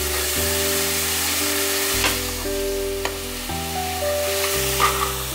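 Chopped onion and tomato sizzling as they fry in hot oil in a steel kadai, with a steel spoon scraping and clinking against the pan a few times as it is stirred. Soft background music with sustained notes plays underneath.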